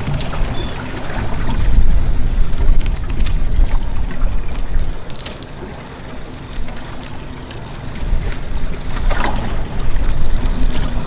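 Low, uneven rumble of a boat, with light clicks and scrapes of a fillet knife cutting a roosterfish fillet away from the ribs.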